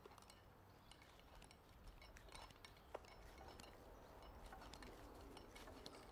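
Near silence: faint background ambience with a few scattered small ticks and clicks.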